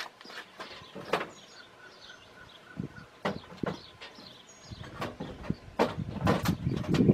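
Irregular sharp knocks and clicks, about a dozen scattered through, with short high bird chirps in the background and a low rumble rising in the last couple of seconds.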